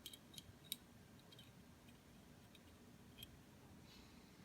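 A few faint, sharp clicks of small steel pistol parts being handled while a firing pin safety detent and its spring are fitted: three quick clicks in the first second and another about three seconds in.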